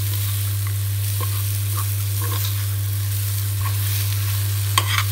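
Ground ivy gourd and green chilli chutney frying dry in a kadai, sizzling gently while a steel spoon stirs and scrapes it around the pan, with a sharper scrape near the end. A steady low hum runs underneath.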